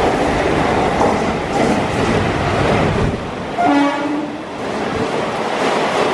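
Deccan Queen express passing the platform at speed behind a WCAM2P electric locomotive: a loud, steady rumble of the locomotive and coaches with wheels clacking over the rail joints. A train horn sounds for about a second just past the middle.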